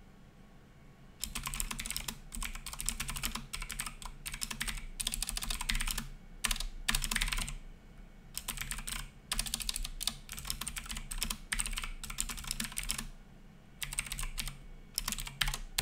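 Typing on a computer keyboard: rapid runs of key clicks in bursts with short pauses, starting about a second in.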